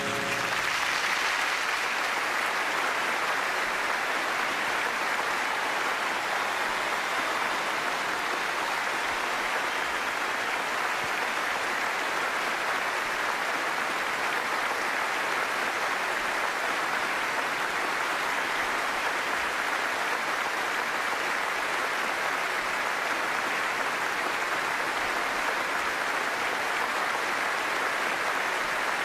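A large theatre audience applauding, a steady, sustained ovation with no break.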